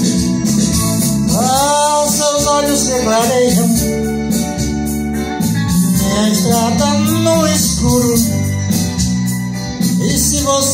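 Live band music led by an electronic keyboard with an organ sound, sustained chords under a melodic line that slides up and down in short phrases, over a steady drum beat.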